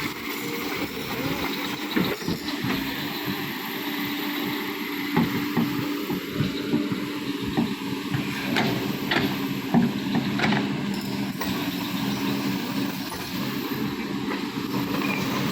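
Excavator's diesel engine running steadily, with a few sharp knocks and clanks scattered through.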